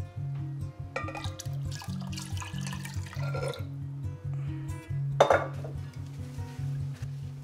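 Liquid pouring into a large glass jar over background music with a steady repeating bass line, then a sharp knock about five seconds in.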